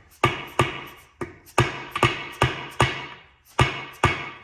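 A hammer strikes a brass punch about ten times, driving at a shaft in an M21 Muncie four-speed transmission. Each blow is a sharp, ringing metal strike, coming two to three a second with a short pause partway. The shaft is stuck and is not moving.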